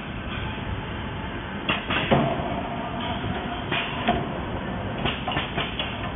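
2D CNC wire bending machine running with a steady mechanical hum, broken by sharp metallic clacks: a pair about two seconds in, another pair about four seconds in, and a quick cluster near the end.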